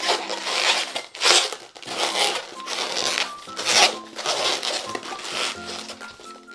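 Latex 260 modelling balloon being twisted and wrapped by hand, the rubber rubbing and squeaking in repeated bursts under soft background music.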